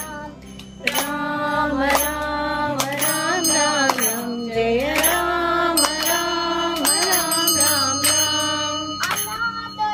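Indian devotional music: a held, gliding melody line over a steady drone, with bell strikes about once a second.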